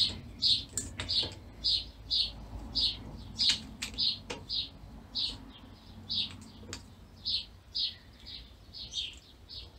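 Bowstring serving jig squeaking in a steady rhythm as it is turned around the string to wind on serving thread, about two short high squeaks a second, with a few light clicks.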